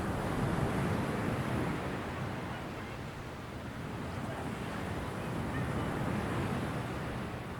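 Sea waves breaking and washing up on a shore in a continuous rush, swelling in the first couple of seconds, easing off midway, then surging again around six seconds in.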